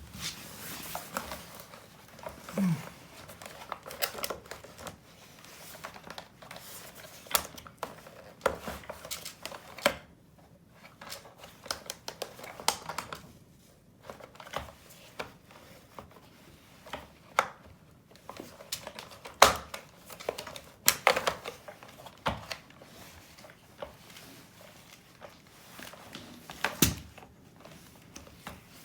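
Irregular light clicks, taps and rustling from handling the plastic parts of a vacuum cleaner being taken apart for repair, with a few sharper knocks.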